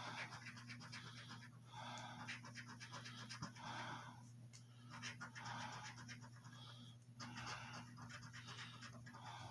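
A coin scraping the coating off a scratch-off lottery ticket in short, faint strokes, over a steady low hum.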